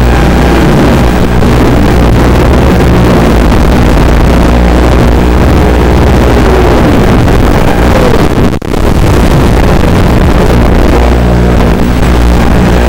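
FPV racing quadcopter's motors and propellers buzzing, the pitch rising and falling with throttle. The sound drops out briefly about eight and a half seconds in.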